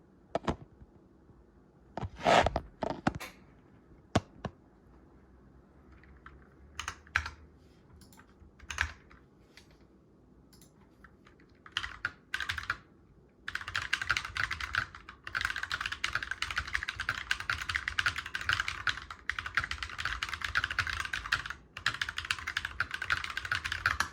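Typing test on a GMMK Pro mechanical keyboard with lubed Glorious Panda switches and PBT keycaps: scattered single keystrokes at first, then fast continuous typing from about halfway through. The owner finds it sounds more hollow than his Keychron Q1.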